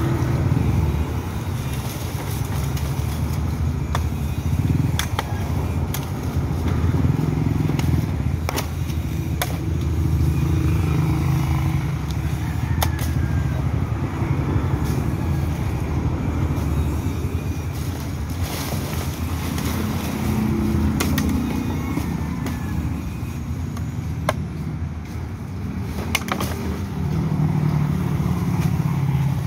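Machete chopping through tree branches: sharp, irregular chops every second or few, over a steady low rumble of street traffic.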